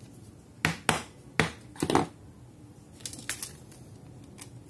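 Plastic mini 4WD chassis and its propeller shaft being handled and fitted together: a handful of sharp clicks and knocks in the first two seconds, then lighter ticks.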